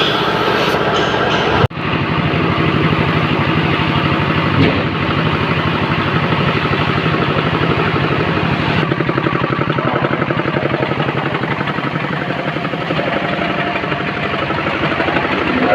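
An engine running steadily with a fast, even pulse, after the sound cuts off abruptly less than two seconds in.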